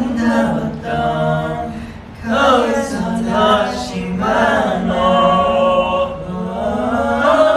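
Men's voices singing unaccompanied, with one longer held note about five seconds in.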